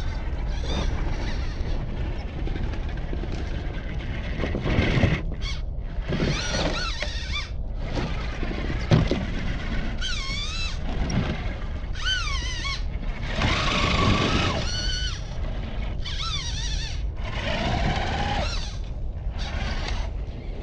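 Electric motors of scale RC crawler trucks whining, rising and falling in pitch in short stretches as the throttle is worked, over a steady low rumble.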